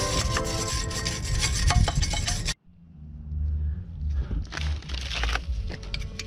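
Rough back-and-forth rubbing strokes of hand abrasion on a steel exhaust pipe, scrubbing off dirt and rust. In the first part they play under background music; about halfway through there is an abrupt cut, and the rubbing picks up again over a low rumble.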